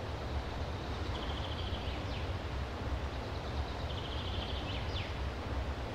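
Steady outdoor rumble and hiss. A small songbird sings twice, each time a rapid, even trill of high notes ending in a quick falling slur.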